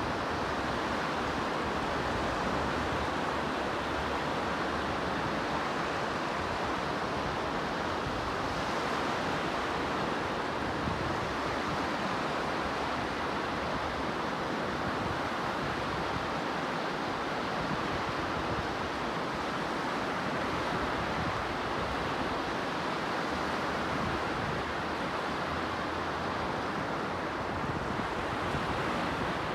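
Sea waves washing steadily on a shore, a continuous even rush with no distinct breaks, with some wind on the microphone.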